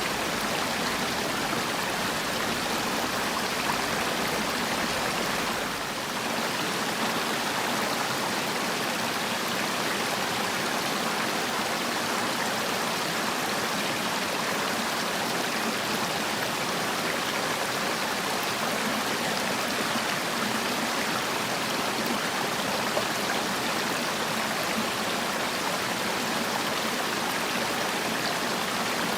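Mountain valley stream running steadily, an even rush of flowing water.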